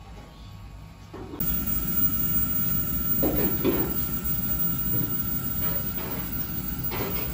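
Steady low rumbling background noise, typical of a busy street, that gets suddenly louder about a second and a half in, with a few short clattering sounds over it.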